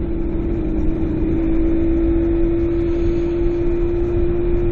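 Motorcycle engine running at a steady cruising speed, holding one constant note, over a heavy low wind rumble.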